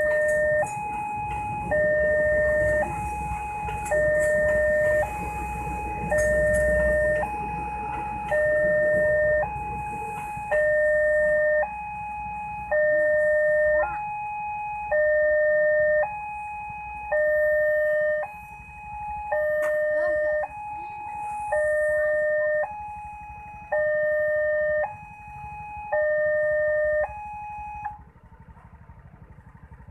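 Railway level-crossing warning alarm sounding an electronic two-tone chime, a higher and a lower note alternating about a second each; it stops near the end. A passenger train rumbles past under it during the first several seconds.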